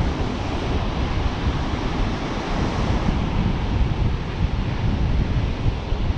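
Strong wind buffeting the microphone: a loud, gusty rumble, with ocean surf breaking underneath it.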